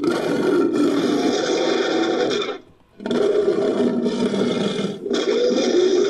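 Monster roars for a fictional manticore, mixed from lion and creature roar recordings. A long, rough roar starts abruptly, breaks off about two and a half seconds in, and is followed after a short pause by two more roars back to back.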